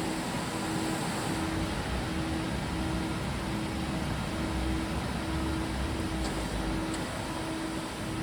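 Steady mechanical running noise with a low hum that pulses on and off in an even rhythm, about three pulses every two seconds.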